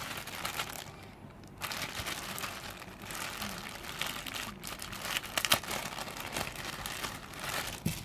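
Packaging crinkling and rustling in irregular bursts as it is handled, with a brief lull about a second in and a few sharper crackles a little past the middle.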